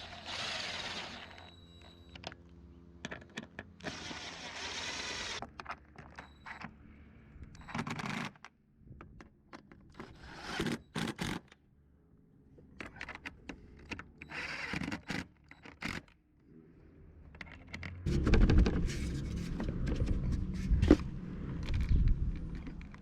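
Scattered scraping, rustling and clicking of hands-on assembly work on a truck's roof rack, in short noisy bursts. Near the end a louder low rumble with a few knocks takes over.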